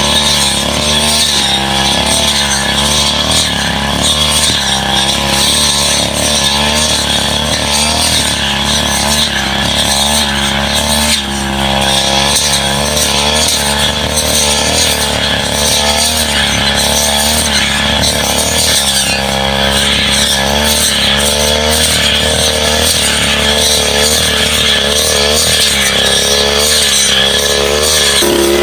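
Brush cutter engine running hard, its pitch dipping and rising over and over as the blade cuts into saplings and scrub.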